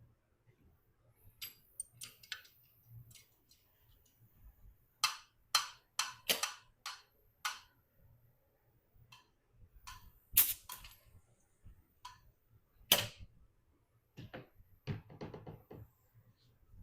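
Scattered sharp metal clicks and knocks of valve-train parts being worked off a GM 5.3 V8 cylinder head and set down: valves, springs and keepers. A quick run of clicks near the middle, two louder single knocks after it, and another cluster near the end.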